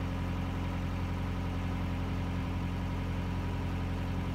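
Narrowboat engine running steadily while the boat is under way: an even low drone that holds one pitch.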